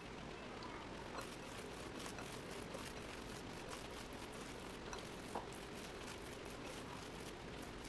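Faint sound of a hand mixing a thick, coarse batter of ground toor dal and rice with chopped cabbage and onion in a ceramic bowl: soft crackling and squishing that starts about a second in, with a sharper tick about five seconds in, over a steady low hiss.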